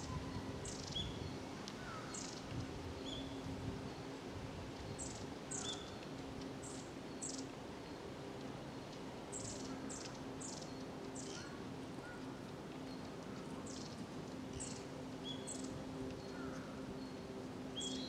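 Long-tailed tits calling: short, thin, very high notes come a few at a time, scattered irregularly, with an occasional lower short note. A faint steady low hum lies underneath.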